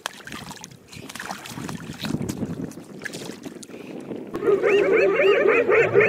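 Wind and water noise on the microphone, then about four seconds in a loud, rapid string of rising-and-falling yelping calls, about five a second, from a group of spotted hyenas.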